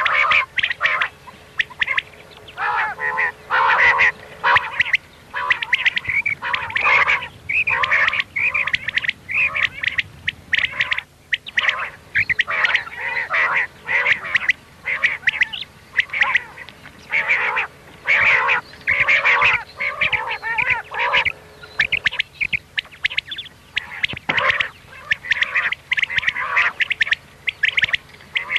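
Common quail calling over and over: a dense chatter of short, mewing calls, several overlapping, coming in quick runs with brief pauses now and then.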